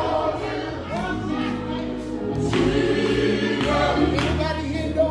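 Male gospel vocal group singing live: a lead voice over the group's backing harmonies, with musical accompaniment.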